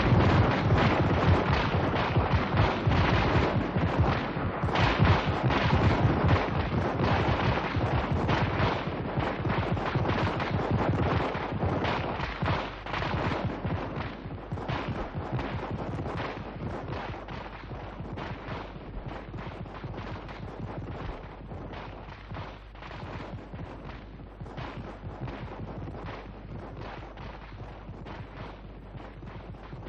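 Dense, rapid gunfire, many shots overlapping, gradually dying away.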